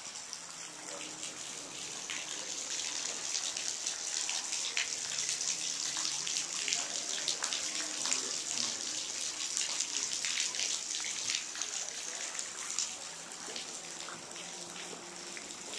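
Small waterfall splashing into a rock pool: a steady hiss made of many small splashes and drips, growing louder through the middle and easing off near the end.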